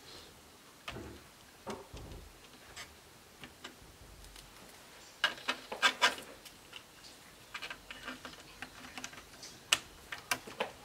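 Scattered clicks and small taps of pliers against laptop parts as the heatsink and fan area of the motherboard is worked on, with a quick run of sharp clicks about five to six seconds in and more near the end.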